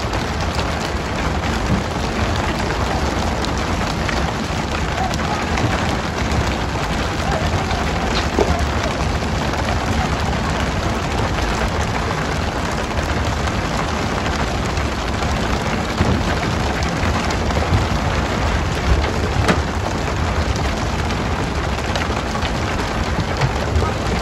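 Steady hiss and patter of the boat's water sprayers showering the sea surface at the stern, as used in pole-and-line tuna fishing, with a few faint knocks.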